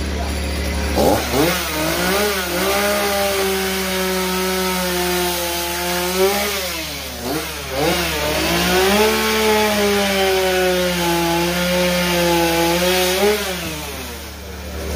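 Two-stroke chainsaw revved up about a second in and cutting into a wood carving block, its engine pitch sagging and recovering as the bar bites. It eases off and revs again around six to eight seconds in, then drops back toward idle near the end.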